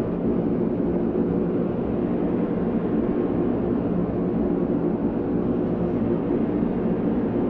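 Dense electronic noise drone, a steady rumbling wash with faint sustained tones in the low middle range.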